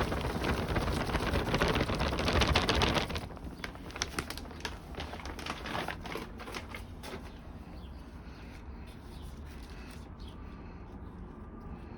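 Potting soil being poured and scooped into a plant pot: a dense gritty rustle for about three seconds, then scattered small rustles and clicks.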